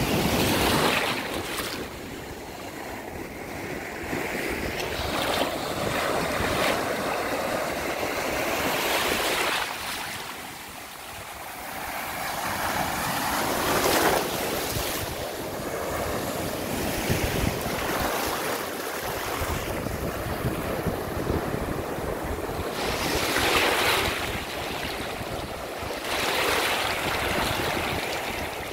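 Small surf breaking and washing up over shallow sand, swelling and easing in repeated surges, with wind buffeting the microphone.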